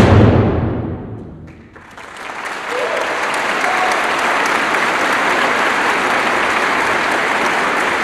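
Symphony orchestra's closing chord, struck with a bass drum hit, ringing out in the concert hall for about two seconds. Audience applause then rises and goes on steadily.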